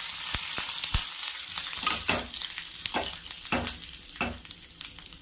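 Hot oil sizzling in a small aluminium pan as a tempering of dried red chillies, curry leaves and panch phoron spices fries and splutters, with many small crackling pops. The crackling thins out and grows quieter toward the end as the spices finish spluttering.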